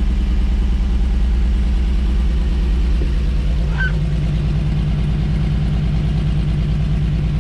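1954 Chevrolet 3100 pickup's straight-six engine idling steadily with a fast, even pulse as it warms up, its temperature gauge about halfway up. The carburetor is judged junk and the timing a little out.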